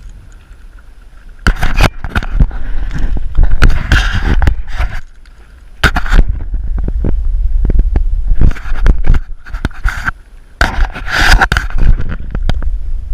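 Wind buffeting the microphone in gusts, a deep rumble, mixed with scraping and knocks from the phone being handled. It starts about a second and a half in.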